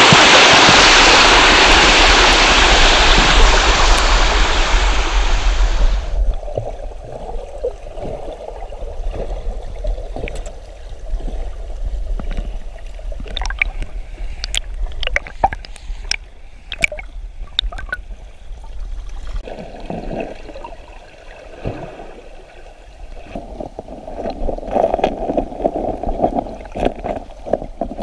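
Mountain stream water. A loud, steady rush cuts off abruptly about six seconds in, and a quieter gurgling of water over rocks follows, with scattered sharp clicks.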